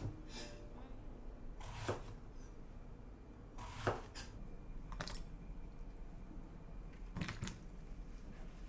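Kitchen knife cutting eggplant on a wooden cutting board: a sharp knock of the blade on the board every second or two, about six in all, over a faint low hum.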